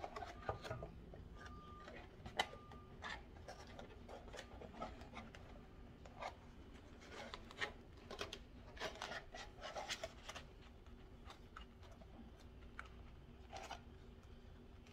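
Faint rustling, rubbing and small clicks of a thin flexible plastic chopping-mat sheet being handled and pressed into a metal napkin holder, busiest around the middle.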